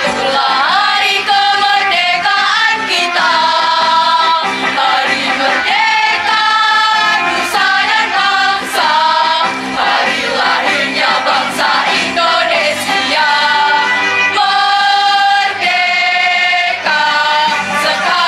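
Girls' school choir singing an Indonesian national song together, loud and continuous.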